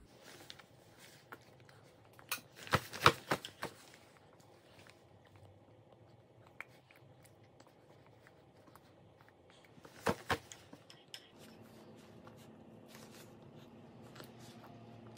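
Baby spoon clicking and scraping against a bowl as baby food is scooped up: a cluster of sharp clicks a couple of seconds in, and a shorter one about ten seconds in.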